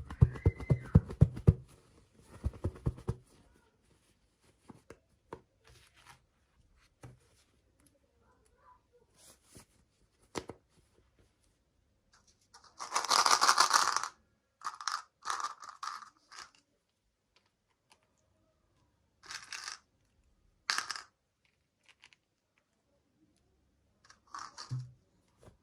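Toy packaging being handled and torn open: a quick run of clicks and rattles at the start, then a long tearing sound about halfway through, followed by several shorter rips.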